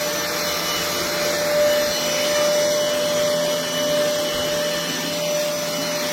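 Cordless stick vacuum cleaner running steadily: a rush of air with a steady whine from the motor.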